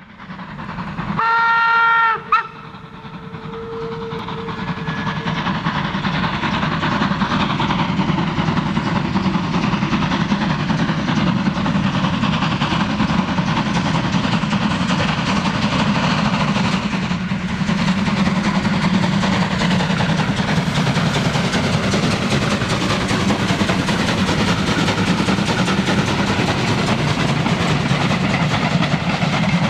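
DB Class 52 2-10-0 steam locomotive climbing a gradient under heavy load with a passenger train. It gives a short whistle blast about a second in. Then the hard-working exhaust and running gear grow louder over the first few seconds as it approaches, and hold steady as it passes.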